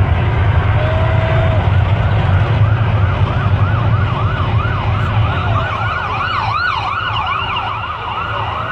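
An emergency vehicle siren yelping, its pitch sweeping quickly up and down about three times a second, over a deep rumble that fades about halfway through. A second, higher siren joins about six seconds in.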